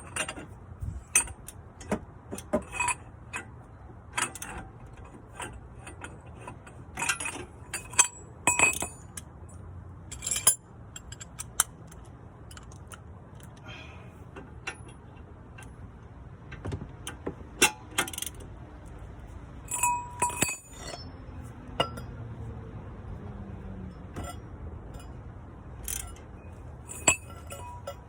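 Metal hand tools and parts clinking and knocking in irregular sharp clicks while the shock absorber is fitted and tightened.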